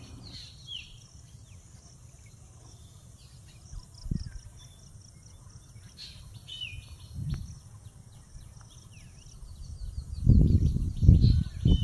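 A chorus of small birds chirping and whistling in short notes, over a steady high insect-like hiss. Near the end come several loud, low rumbling gusts, the loudest sound.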